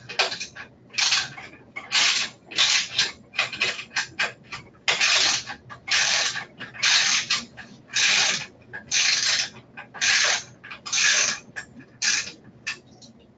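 Ratchet wrench tightening the mounting bolt of a wheelchair's rear swivel caster. The pawl rasps on each back-stroke, about once a second, a dozen or so times.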